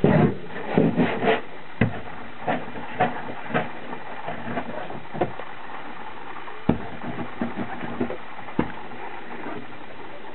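Scattered knocks and light bumps, a cluster in the first second or so and single sharper ones every second or two after, over a steady hiss: handling and movement sounds inside a small boat's cabin.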